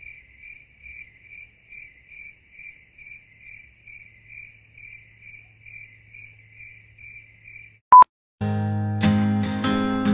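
Cricket chirping faintly and very regularly, about two chirps a second. Near the end a short, loud beep cuts in, then acoustic guitar strumming starts.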